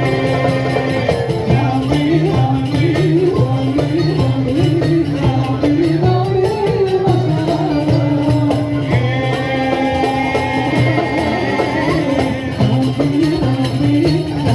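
Live folk music from a band: a melody line that bends and wavers over a steady low bass, with percussion.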